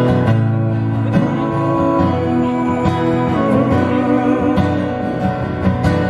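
A street performer strumming an acoustic guitar, playing a steady song.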